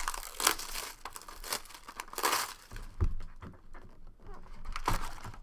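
Wrapping on a box of trading cards being torn and crinkled open, in several short rustling bursts with a longer tear near the middle.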